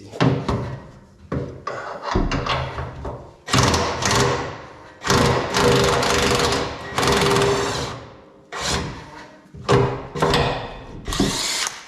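Power tool running in about eight stop-start bursts, each half a second to two seconds long, backing off a fuel-tank strap's locking nut.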